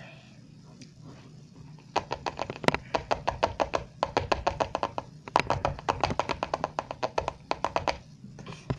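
Small hard pieces of food pouring out of a little bag into a dish, making a fast run of rattling clicks in two pours, the second starting about halfway through.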